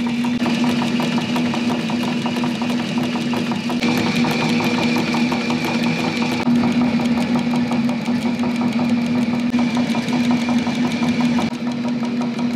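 Techsew 2750 Pro cylinder-arm leather sewing machine running steadily at speed to wind a bobbin: a constant hum with a fast, even ticking from the mechanism.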